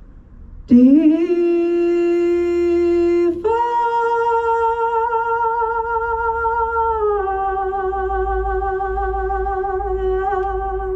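A woman's voice singing closely into a handheld microphone, holding long notes with few breaks. It comes in with a scoop up to the first note, jumps to a higher note, then slides down to a middle note held with a slight waver.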